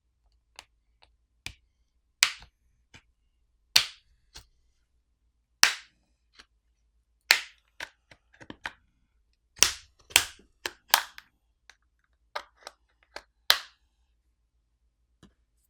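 Plastic catches of a Doogee N50's back housing snapping loose one after another as a pry tool is run along the seam between the back cover and the screen frame: a string of sharp, irregular clicks and snaps.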